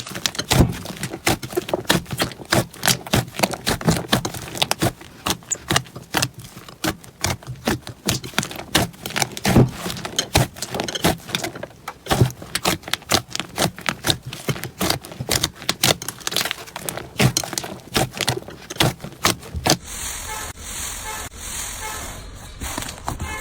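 Slime being played with by hand, giving a dense, irregular run of quick sticky pops and clicks; about twenty seconds in the sound changes to a smoother, softer texture with fewer pops.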